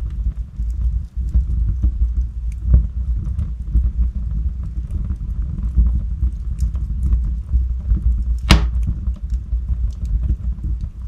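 Wood logs burning in a fireplace: a steady low rumble of the flames with scattered small crackles, and two sharper pops, the louder one about three-quarters of the way through.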